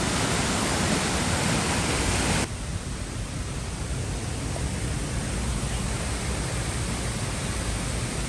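Waterfall pouring into a plunge pool: a steady rush of falling water. It drops suddenly to a lower level about two and a half seconds in, then carries on evenly.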